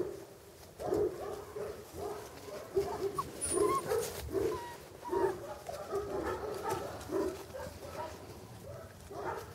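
English cocker spaniel puppies yapping and whining in short calls, one after another, many times over while they play.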